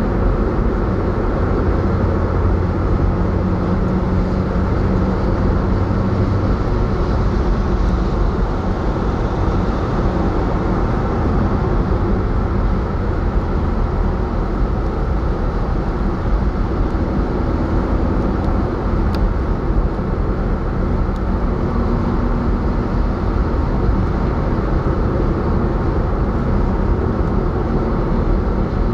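Steady road and engine noise of a car cruising at motorway speed, heard from inside the cabin: a continuous low rumble of tyres and engine.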